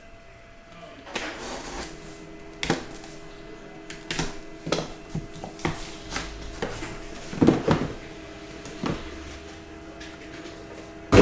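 A cardboard shipping case being opened by hand: tape peeled off, then the cardboard flaps and the sealed boxes inside handled, giving scattered knocks, scrapes and rustles, with a louder knock at the very end.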